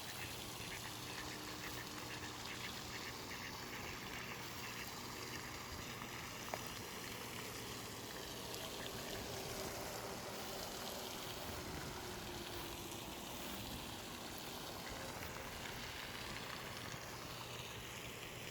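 Steady outdoor pond ambience: an even hiss of water trickling and lapping, with one brief click about six and a half seconds in.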